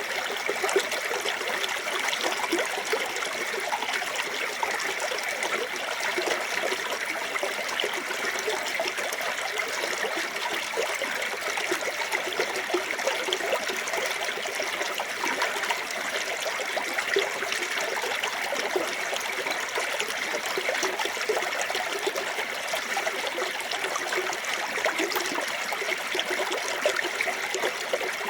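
Small waterfall pouring into a clear stream: a steady splashing and trickling of running water.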